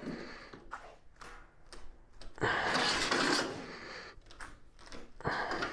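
Scattered knocks and clicks of a steel plate and tools being handled in a small room while the plate is worked for bending. About a second of rough rustling noise comes near the middle, and a shorter burst comes near the end.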